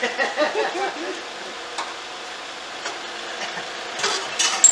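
Motorhome engine idling steadily after its emissions test, with a brief clatter of test equipment being handled near the end.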